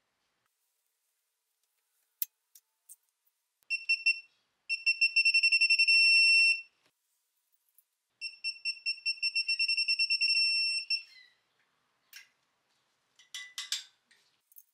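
Rapid high-pitched electronic beeping from a warning beeper: the pulses speed up and run together into a steady tone, in two stretches of about two and three seconds. A few clicks come before it and some rustling near the end.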